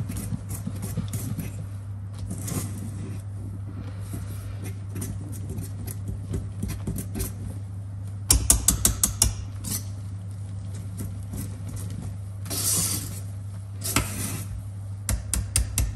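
Wire balloon whisk beating thick, foamy cake batter by hand in a stainless steel mixing bowl: swishing strokes with the wires rattling against the bowl, and a quick flurry of sharp clicks about eight seconds in. A steady low hum lies underneath.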